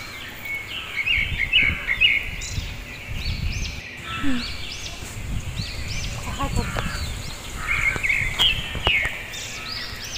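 Birds calling all through in many short, repeated high chirps over a low uneven rumble, with a couple of sharp knocks near the end.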